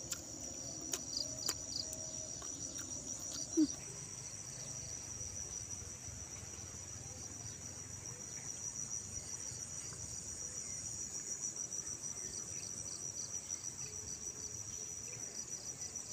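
Steady high-pitched chorus of crickets and other insects, with a pulsing chirp running through it. A few clicks and one short knock come in the first four seconds.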